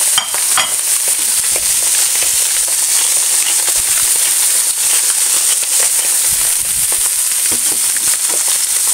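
Salmon, sea bass fillets and shrimp frying in hot olive oil in a cast-iron skillet on high heat: a steady sizzle with fine crackles.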